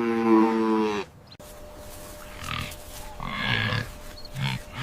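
A farm animal calling: one drawn-out call at a steady pitch lasting about a second, then, after a short break, a run of low grunts.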